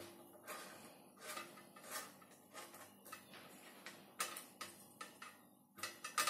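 Light metallic clicks and ticks, irregular at about two a second, as the stainless liquid-out post of a soda keg is unscrewed by hand after being loosened with a wrench. A sharper click comes near the end.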